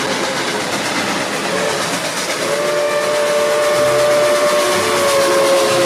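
Steam locomotive whistle sounding several notes at once over the steady hiss and rumble of the working engine. One blast is followed by a second, louder long blast from about two and a half seconds in, which sags slightly in pitch as it ends.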